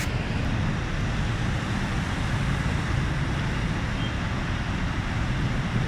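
Steady rushing noise of traffic driving through a flooded street, with a heavy low rumble throughout.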